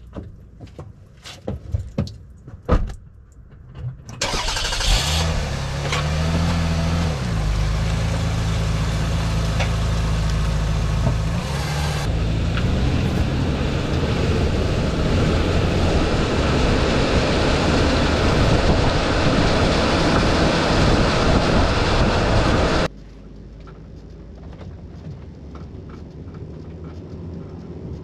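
2001 Toyota Avalon's 3.0 L V6 engine and road noise as the car gets going and drives, picked up from under the rear of the car: a few sharp knocks, then a sudden loud start about four seconds in, with the engine note rising and settling under heavy tire and wind noise. Near the end the sound drops abruptly to quieter road noise inside the cabin.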